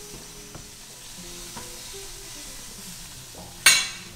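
Hot food sizzling in kitchen cookware, with a few light clicks, then one loud metal clank near the end.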